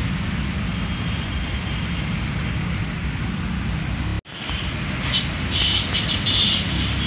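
A steady low rumble with hiss that cuts off abruptly about four seconds in and then resumes. Birds chirp over it in the second half.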